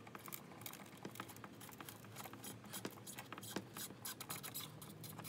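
Phillips screwdriver turning out the centre screw through a tow mirror's broken lower glass: quiet, irregular scraping and small clicks of the metal tip and loose glass shards.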